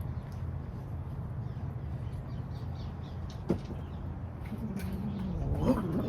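A cat's low, wavering yowl that starts about four and a half seconds in and grows louder, over a steady low hum, with one sharp click shortly before it.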